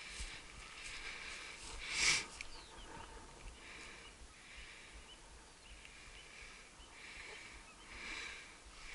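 A person walking across tundra grass: soft, rhythmic swishes about once a second, one louder about two seconds in.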